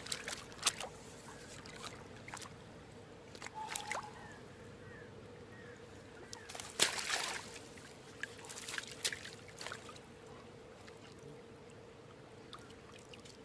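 Water splashing and sloshing in a landing net as a netted barbel thrashes at the river's edge, in scattered bursts with the loudest splash about seven seconds in.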